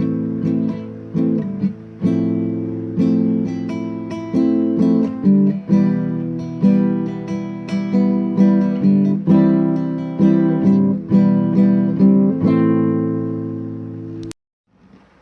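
Acoustic guitar playing a slow sequence of strummed and plucked chords, each one struck and left to ring and fade. A last chord rings out toward the end, then the sound cuts off abruptly.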